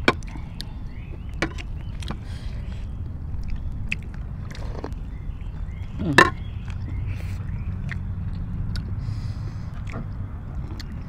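Eating sounds: chewing, and now and then a spoon or fingers clicking on ceramic bowls and plates, over a steady low rumble. One louder, sharp sound comes about six seconds in.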